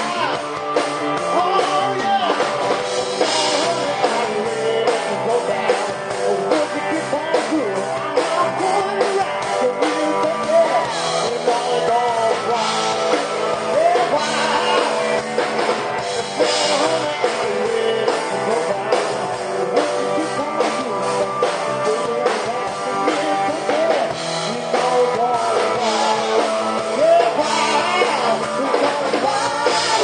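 Live rock band playing: electric guitar, bass guitar and drums, with a singer's voice over them.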